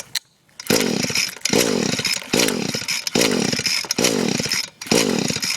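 Echo SRM-210 string trimmer's two-stroke engine being cranked with the pull-starter cord, about six quick pulls in a row, each a brief whirring rush, after WD-40 was sprayed in as a starting aid; it does not catch and run.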